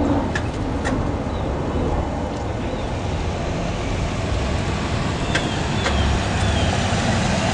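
City street traffic: a steady rumble of cars passing on the road, with a few faint high chirps over it.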